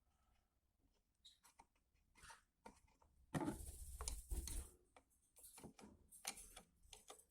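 Faint clicks and ticks of a screwdriver working a screw out of a sewing machine's cover, with a louder stretch of rubbing and handling noise about three to five seconds in.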